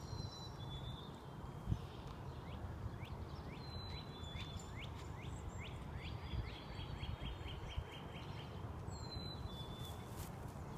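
A songbird singing a quick run of short, down-slurred chirps, about two or three a second, for several seconds in the middle, over a low steady rumble. There is one brief knock about two seconds in.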